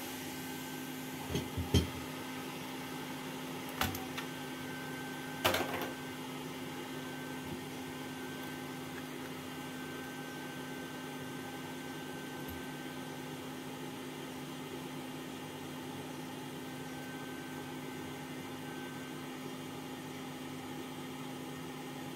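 Steady hum of an electric blower running on a repair bench, with a few short clicks and knocks in the first six seconds.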